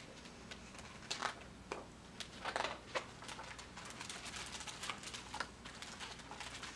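Faint rustles and soft taps as the cover and pages of a large hardcover picture book are opened and turned, scattered over a low steady hum.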